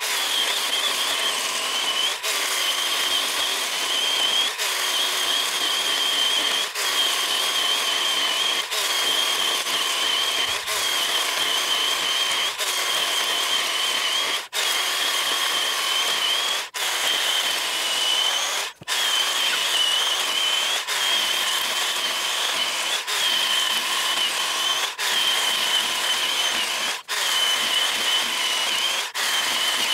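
Greenworks 24-volt 10-inch cordless electric chainsaw running under load, its chain cutting through a dry log: a steady high whine with short breaks about every two seconds.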